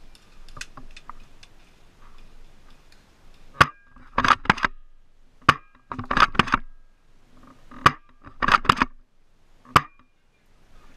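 Airsoft rifle shots: sharp snapping cracks, some single and some in quick bursts of three or four, about seven groups spread over the second half.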